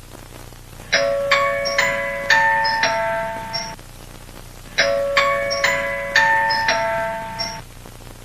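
Mock emergency alert chime: a short phrase of several bell-like struck notes that ring on and overlap. The phrase plays twice, with a pause of about a second before each.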